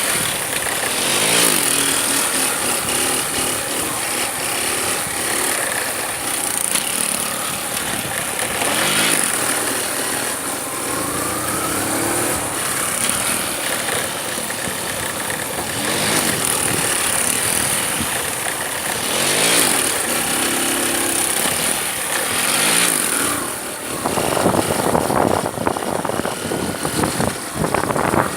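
Motorcycle engine revving up and dropping back again and again, several long rising and falling sweeps, with a rougher, noisier stretch near the end.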